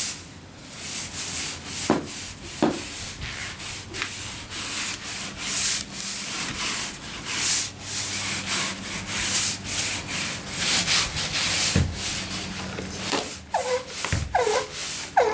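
Stiff hard-bristle brush scrubbing deck cleaner into weathered wooden deck boards along the grain: repeated scratchy back-and-forth strokes, about two a second.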